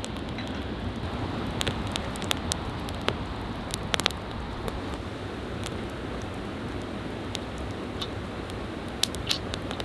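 Wood campfire of split logs burning in a fire pan: a steady hiss with scattered sharp crackles and pops, the loudest about four seconds in and a couple more near the end.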